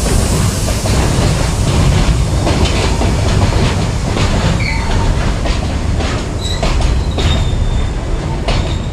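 WAG-12B electric freight locomotive running on the track, a steady loud rumble with its wheels clattering over rail joints. There are a few brief high squeals in the second half.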